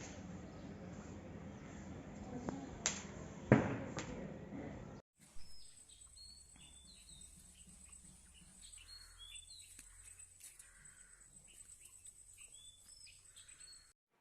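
Handling noise with two sharp clicks, then a cut to faint, repeated high chirps of small birds, each chirp short and falling in pitch.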